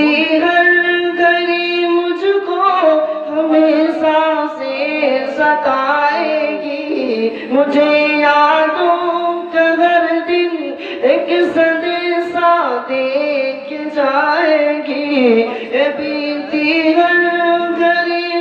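A group of young men singing an Islamic devotional song (nasheed) together without instruments, in long held notes that waver and slide.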